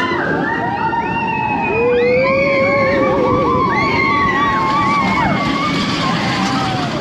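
Many roller coaster riders screaming and whooping together, long rising and falling yells overlapping, over the steady rushing rumble of the coaster train running on its track.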